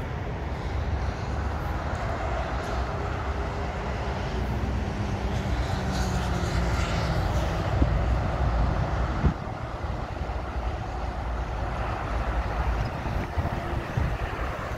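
Motorway traffic going by, with trucks passing, swelling to a peak about eight seconds in and easing off a second later, over a low rumble of wind on the microphone.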